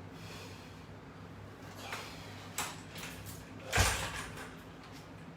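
Handling noises from resistance-band exercise equipment: a sharp click about two and a half seconds in and a louder thump with a rush of noise near four seconds, over a low steady hum.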